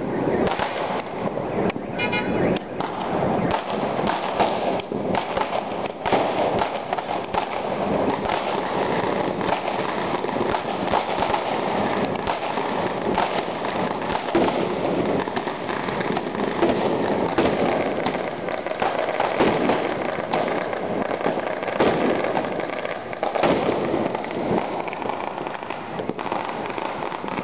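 Chinese New Year firecrackers and fireworks going off without a break in the street below, a dense rapid crackle of bangs.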